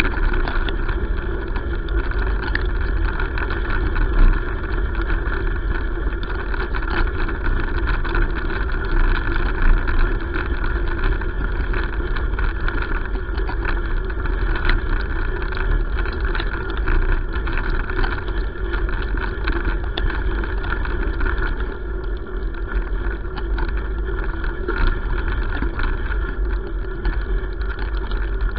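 Steady rolling rumble of wheels on a gravel road, with many small scattered clicks and rattles.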